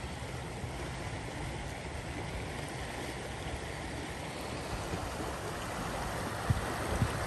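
Floodwater rushing steadily across a flooded road and footpath, an even wash of water noise, with two brief knocks near the end.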